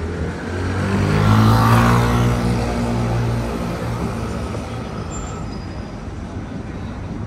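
A motor vehicle driving past close by, its engine hum and road noise swelling about a second in, loudest for a second or two, then fading away.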